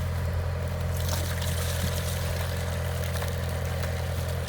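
An engine running steadily at idle: an even, low hum.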